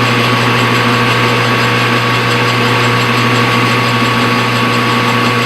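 Metal lathe running steadily, with a constant hum and a steady whine.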